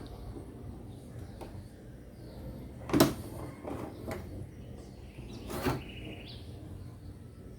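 Metal side cover of a Lenovo ThinkCentre M58P desktop case being slid open and lifted off: a few knocks and clunks, the loudest about three seconds in and another near six seconds, with faint rubbing between.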